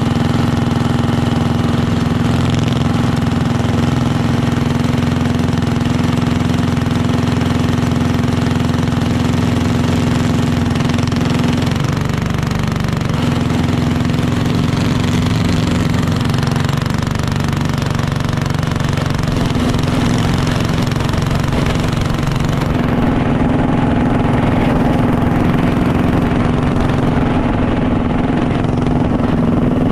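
Racing kart's single-cylinder engine idling steadily at about 2600 rpm, close to the microphone. Near the end it picks up as the kart pulls away at low speed.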